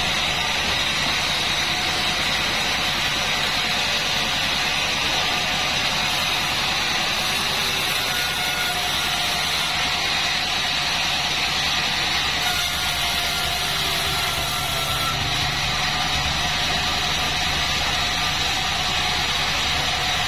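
Sawmill bandsaw running steadily, a continuous machine hum with a hiss on top that holds level throughout.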